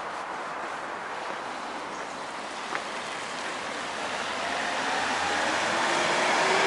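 Road traffic: a steady wash of tyre noise, with a passing vehicle swelling louder over the last few seconds and its engine tone showing faintly as it nears.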